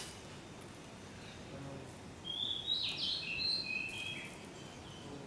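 A songbird calling: a quick run of short, high whistled notes, several sliding downward, starting about two seconds in and lasting about two seconds, over faint outdoor background noise.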